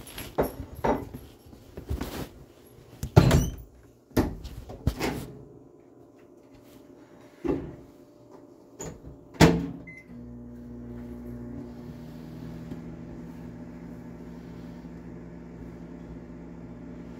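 A series of knocks and thumps, like doors and dishes being handled, then a short beep and a steady appliance hum starting about ten seconds in.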